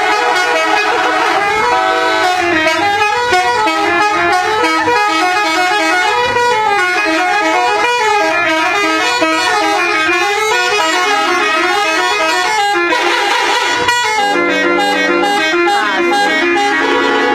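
Indonesian 'telolet' bus horn: a multi-tone musical air horn playing quick, changing runs of notes like a tune. Near the end it holds several notes together as chords. A brief burst of noise comes about two-thirds of the way through.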